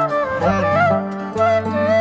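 Background music: a gliding melody over sustained low notes.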